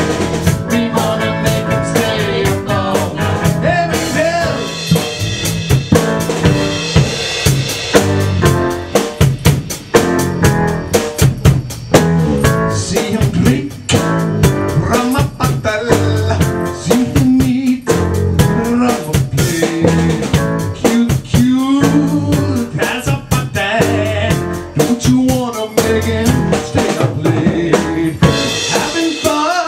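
Live band playing a song: drum kit with snare and rimshot hits under electric guitar, bass and keyboard, with sliding, bending melody lines running through it.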